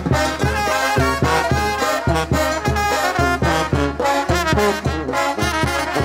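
Brass band playing a cumbia: trumpets and trombones carrying the melody over a steady low beat about twice a second.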